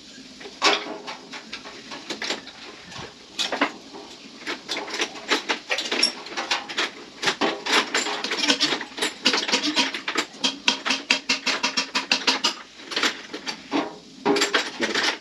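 Metal tools clinking and tapping during motorcycle workshop work: quick, irregular knocks and clicks that come thick and fast through the middle and break off shortly before the end.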